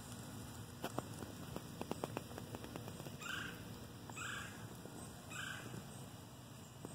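Three short animal calls about a second apart, each the same sliding two-part note, over a faint steady background hiss. A few soft clicks come in the first couple of seconds.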